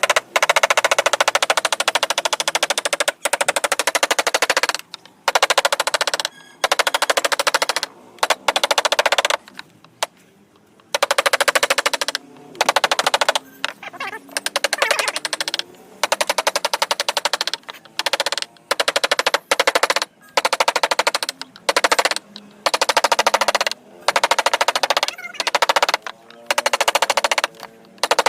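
Wood-carving chisel work: rapid runs of sharp tapping strikes cutting into a wooden panel. The runs last about one to four seconds, with short pauses between them.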